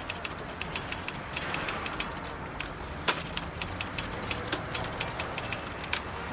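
Typewriter keys clacking in quick, irregular strokes, about five a second, over a steady low city hum.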